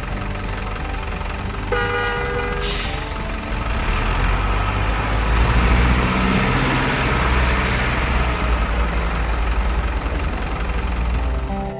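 Diesel dump-truck engine sound running steadily, growing louder around the middle as if pulling under load, with one short horn toot about two seconds in.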